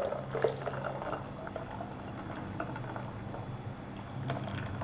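Frothy blended cherry juice pouring from a blender jar through a steel mesh strainer into a glass bowl of ice, splashing steadily, with a sharper splash about half a second in.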